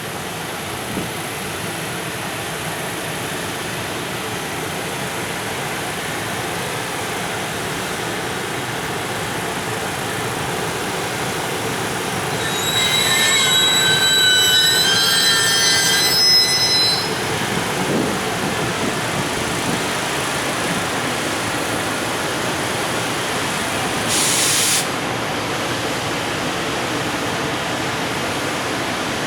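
Freight train of container wagons rolling steadily along the track on departure. About halfway through, its wheels squeal in several shrill, high tones for roughly four seconds, and near the end there is a short hiss.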